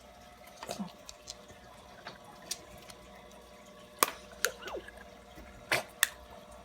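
Scattered sharp plastic clicks and taps from a surprise egg being shaken and handled, with the small toy inside rattling against the shell. The loudest clicks come about four and six seconds in.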